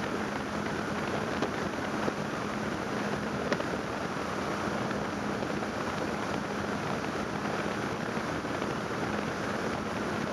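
Suzuki 140 outboard motor running at a steady cruising speed on a rigid inflatable boat, with a low steady drone under wind rushing over the microphone and water noise along the hull. There are a few light knocks early on.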